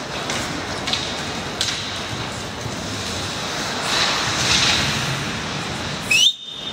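Ice hockey rink during play: a steady wash of skates carving on the ice, with short hissy scrapes from skate blades. Near the end a brief rising squeal, the loudest moment, then the sound cuts out abruptly for a moment.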